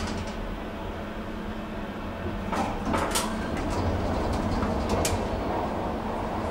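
Inclined elevator's automatic sliding cabin doors opening at a landing: a few sharp clicks and clunks from the door mechanism over a steady low hum, which grows a little louder from about halfway as the doors open.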